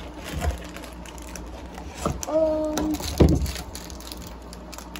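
Items being handled and set down on a tabletop: two dull thumps, about half a second in and just after three seconds, with light rustling between them. A brief hummed 'mm' from the person comes about two and a half seconds in.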